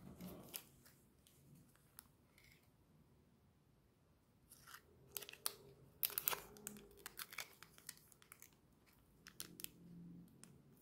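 A small plastic sachet of red pepper oil being opened and handled, crinkling with sharp clicks and rustles that are loudest about six seconds in. The oil is then squeezed out over the cup noodles near the end.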